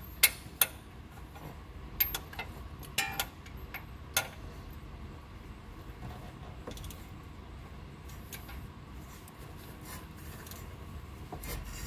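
Hand tools clicking and clinking on metal a handful of times at irregular moments, most in the first few seconds and a few more near the end, over a faint steady low background.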